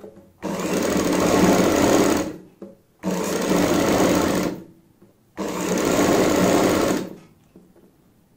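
Sewing machine running in three short stitching runs of about one and a half to two seconds each, stopping briefly between runs, as it sews down a folded fabric edge.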